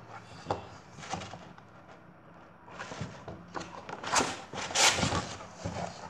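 Paper page of a picture book being turned by hand, with a few light knocks and then a loud rustle and flap of paper about four to five seconds in.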